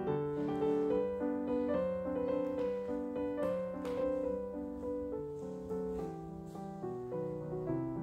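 Instrumental piano music: a melody of held notes over chords.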